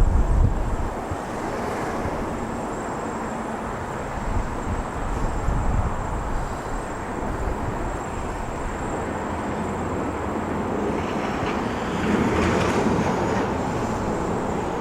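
Jet aircraft engine noise, a steady roar that swells about three-quarters of the way through. Gusty wind buffets the microphone in the first second.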